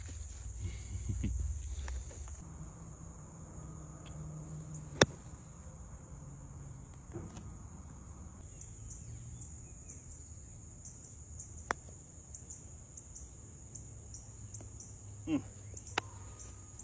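Insects chirping in a steady high drone, fading for a few seconds in the middle and then returning. A single sharp click about five seconds in is the loudest sound, with a few fainter clicks later.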